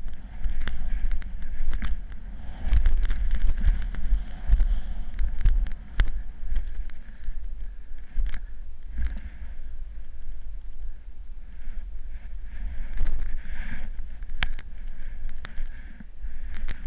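Wind buffeting a helmet-mounted action camera's microphone during a fast descent on snow, with the hiss of sliding over the snow and scattered sharp knocks.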